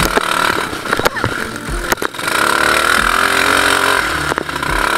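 Off-road ATV buggy's engine running and pulling hard through mud, with several sharp knocks and thuds from the rough, puddled track.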